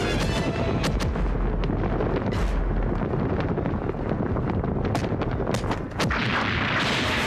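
Firecracker and pyrotechnic explosions: a run of sharp separate bangs, then a denser, louder crackling, hissing blast about six seconds in.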